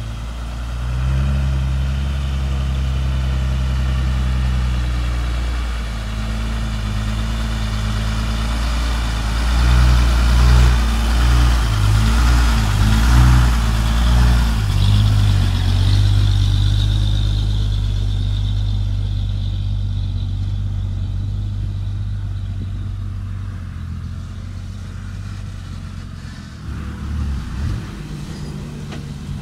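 Isuzu 10-wheel dump truck's diesel engine running as the truck drives and manoeuvres. The engine note wavers up and down and is loudest about halfway through, then eases off and grows quieter over the last third.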